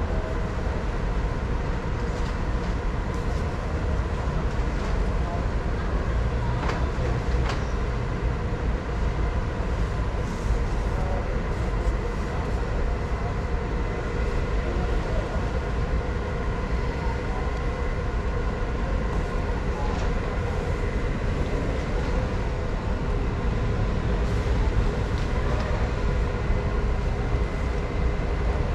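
Steady low rumble and hum of a large store's indoor ambience, with faint voices in the background and a few small clicks.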